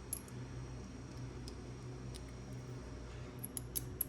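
Light clicks and taps of small metal hex bits and a driver being handled, a few scattered through and a quick cluster near the end, over a faint steady low hum.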